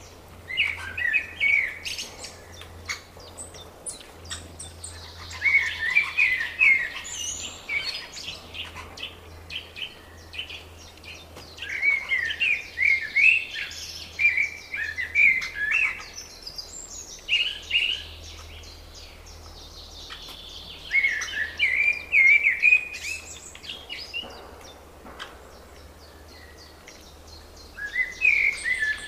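Songbird song: one bird repeats a short song phrase of about two seconds every few seconds, with fainter calls from other birds between.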